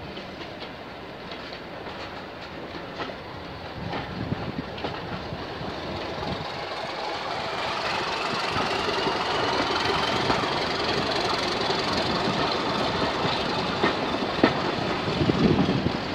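Diesel-hauled passenger train running, heard from aboard: wheels clicking over the rail joints and a steady running noise that grows louder as the train gathers speed, with a faint whine rising in pitch through the middle.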